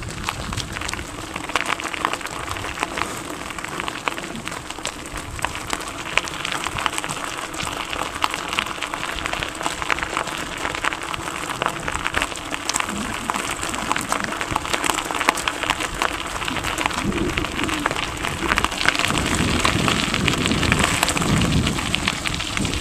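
Bicycle tyres rolling over a gravel path: a steady, dense crackle of grit under the wheels.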